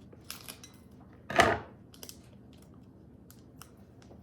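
Small packet being handled and opened: light clicks and rustles, with one short, loud rustle about a second and a half in.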